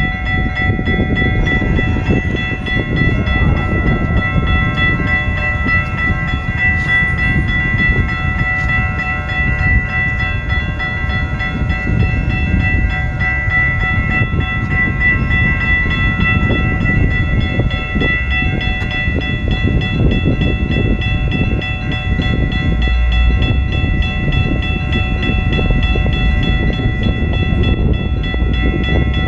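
Railroad crossing warning bell ringing continuously, its ringing tones held steady throughout, under a heavy, gusting wind rumble on the microphone.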